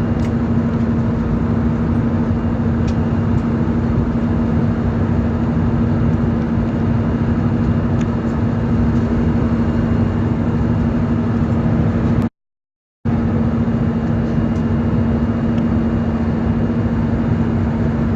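Steady in-flight cabin noise of an Airbus A320-200: engine and airflow rush with a constant hum. It cuts out completely for under a second about twelve seconds in, then carries on unchanged.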